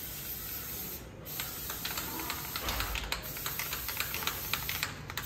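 John Deere green aerosol spray-paint can hissing in many short spurts, touching up tractor paintwork. There is a brief pause about a second in.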